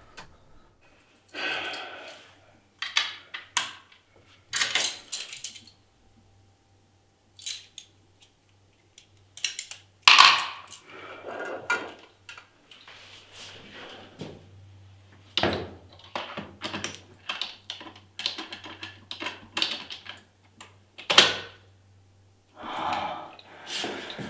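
A bunch of keys jangling and clinking against a tiled floor, among scattered sharp clicks and knocks of handling.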